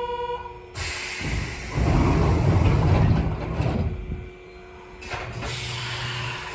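Nankai Koya Line electric train at a station before departure. A steady ringing departure signal stops about half a second in. The train's sliding doors close with a sudden hiss of compressed air and a loud rumble, and another short air hiss follows about five seconds in.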